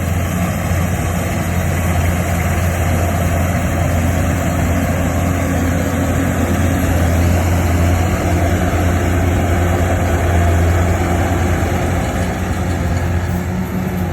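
Rice harvester running steadily: a loud, even, low engine drone with machinery noise over it.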